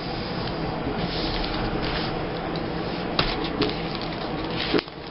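Scrapbook pages being handled and turned: a steady rustle of paper with a few sharp clicks.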